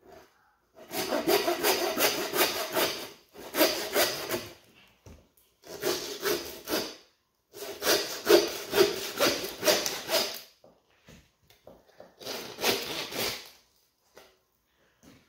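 Bow-frame meat handsaw cutting through a lamb's brisket bone in quick back-and-forth strokes, in five runs of sawing with short pauses between.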